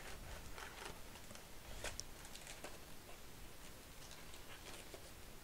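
Faint, scattered clicks and rustles of a cardboard trading-card box and its stack of foil card packs being handled, with the clearest click about two seconds in.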